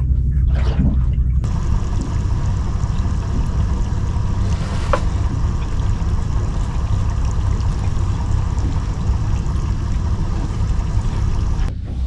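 Steady rush of wind and sea water around a small fishing boat, with a deep rumble underneath and a brief rising squeak about five seconds in.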